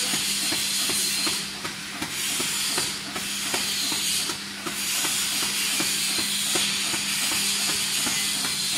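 Shrink sleeve label cutting machine with rewinder running: a steady hiss and hum with regular ticking, about three a second.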